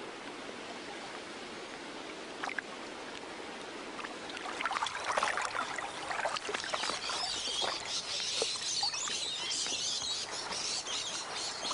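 A faint steady water hiss, then from about four seconds in, irregular water splashing and sloshing as a person moves about, standing in a shallow water tank.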